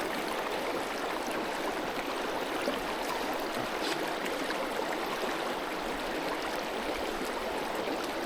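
Steady rushing and babbling of creek water flowing over rocks.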